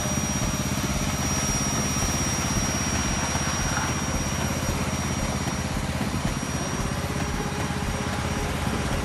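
Small engine running steadily at a constant speed, with a thin high whine over it that stops about two-thirds of the way through.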